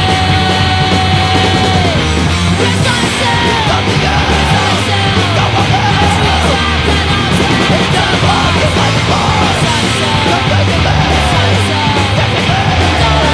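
Loud crust punk song played by a full band, dense and even throughout, with a held high note for the first two seconds or so and then a run of bending notes.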